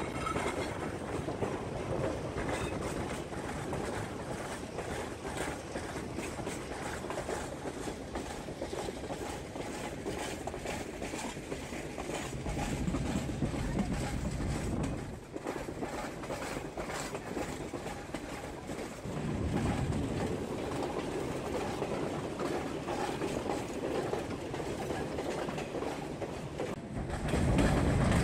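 Passenger train rolling along the track, heard from an open-air car: a steady rumble and clatter of wheels on the rails, swelling twice midway and getting louder near the end.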